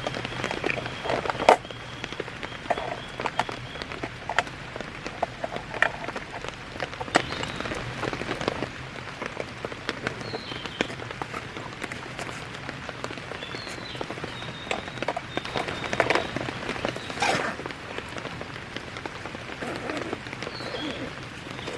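Steady rain falling, with scattered louder drops tapping close by.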